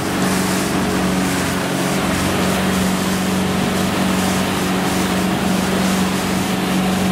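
Boat's outboard motor running steadily under way, a constant even hum, with the rush of water from the churning wake.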